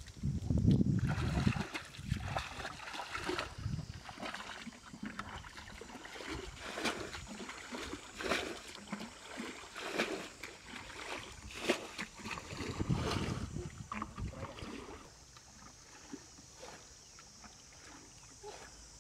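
Muddy ditch water splashing and sloshing in irregular strokes as it is scooped up and thrown out with a hat, heaviest about a second in and again near the two-thirds mark, then dying down to faint trickling for the last few seconds.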